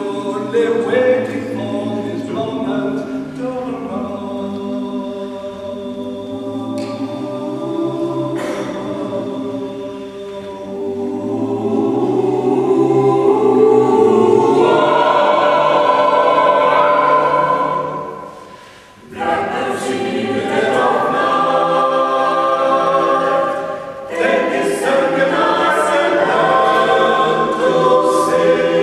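Mixed a cappella vocal group of eight men and women singing in harmony without instruments. The singing breaks off briefly about two-thirds of the way through, then all voices come back in.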